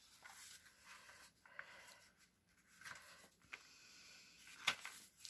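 Faint rustling and sliding of sheets of white paper being handled, with one sharp tap about four and a half seconds in.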